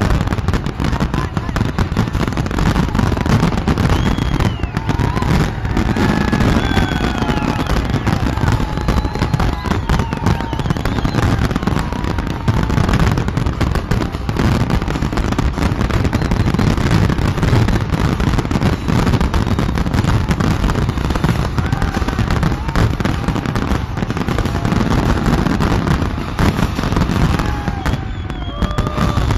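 Fireworks display in full barrage: many aerial shells bursting at once in a dense, unbroken run of bangs and crackles, with no pause.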